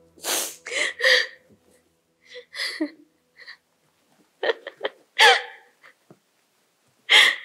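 A young woman sobbing: gasping, catching breaths and whimpers in broken bursts, with a quick run of short sharp intakes about halfway through.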